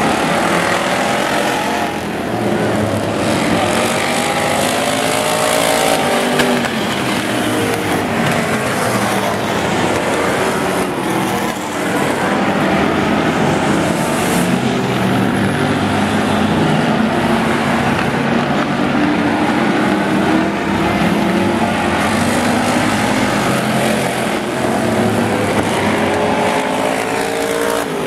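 Engines of a pack of race cars and trucks running hard around an oval speedway, their pitches rising and falling as they accelerate and lift through the turns.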